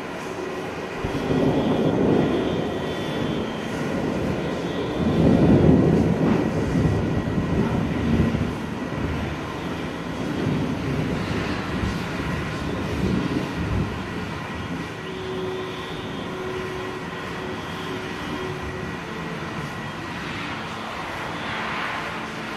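Distant thunder rumbling in long, rolling swells, loudest about five to six seconds in, then dying down into a low steady rumble.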